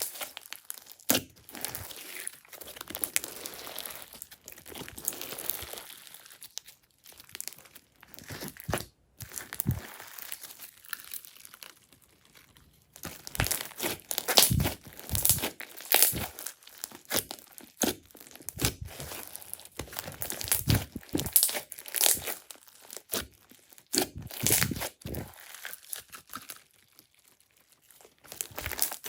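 Slime being squished and worked by hand, giving irregular crackling clicks and pops, thicker in the second half.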